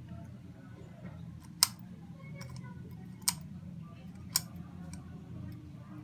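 Antique brass toggle light switch being flipped: three sharp clicks, the first the loudest, over a steady low background hum.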